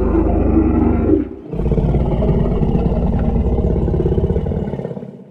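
Two long, low dinosaur roars of a Tyrannosaurus rex: the first breaks off about a second in, and the second follows at once and fades out near the end.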